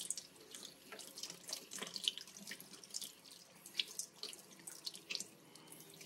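Faint, irregular wet clicks and squelches as a razor clam's foot is scraped and cleaned out by hand and knife.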